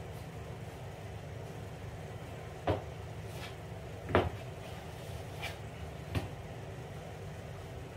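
A small hand scraper scraping and knocking against the floor four times, each stroke short and sharp, the loudest about halfway through, over a steady low hum.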